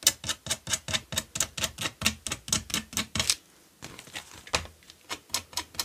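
Quick scratching strokes of a sewing needle raking along a fabric edge to fray it, about seven a second. They pause briefly a little past halfway, then resume more softly.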